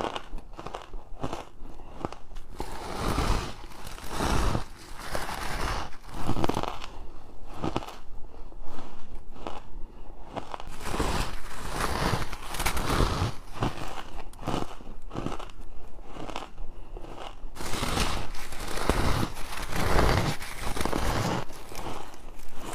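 Close-miked bites into frozen freezer frost and ice, a quick irregular series of crisp crunches.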